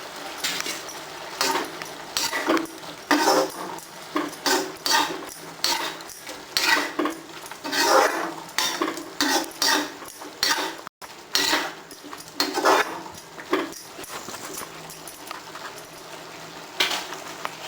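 A spoon clinking and knocking against a cooking pot while a gravy is being stirred: irregular knocks and scrapes, about one or two a second, thinning out after about 13 seconds, with one more knock near the end.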